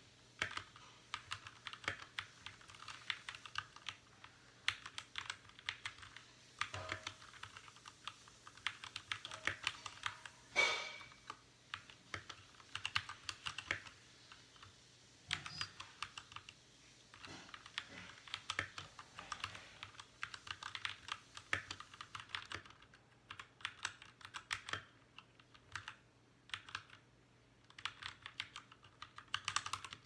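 Fast, continuous typing on a Royal Kludge RK61 60% mechanical keyboard: a rapid clatter of key presses, with one louder clack about ten seconds in and a couple of short pauses in the last third.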